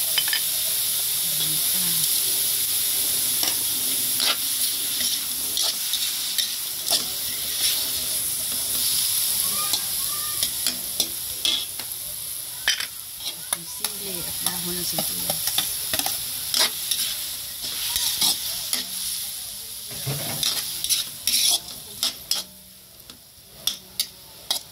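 Beef chunks with onion and tomato sizzling in a hot metal wok while a spatula stirs them, scraping and clicking against the pan again and again. The sizzle dies down near the end, leaving only the scattered clicks.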